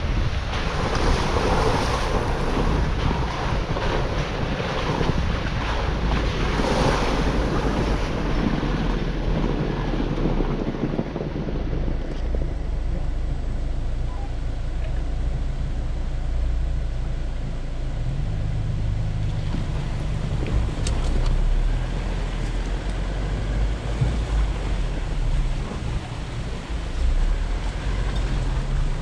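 Off-road 4x4 driving slowly up a muddy, gravelly, snow-covered trail: a low steady engine drone under tyre noise on gravel and slush, with wind buffeting the microphone. The tyre and wind noise is heavier for the first dozen seconds, then eases.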